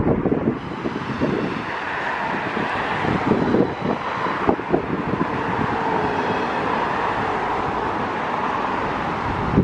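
Cars driving past on a city road, a steady rush of tyres and engines, with gusts of wind thumping on the microphone.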